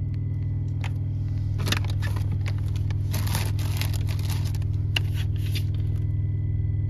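Steady low hum of the Peterbilt semi truck's diesel engine idling. From about two seconds in, rustling and scraping as plastic bags and fridge parts are handled.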